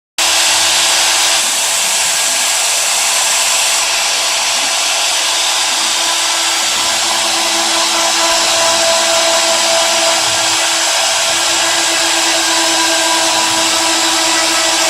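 CNC router running steadily, its spindle motor giving a continuous whine over a loud hiss.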